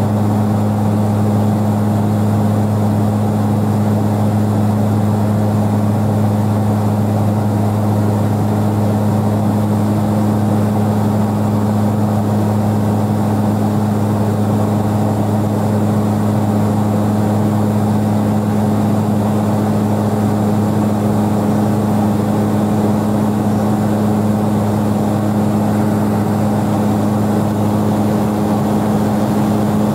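Steady drone of an airplane's engines heard inside the cabin in flight: a strong constant low hum with a second, higher tone above it over a rushing noise, unchanging throughout.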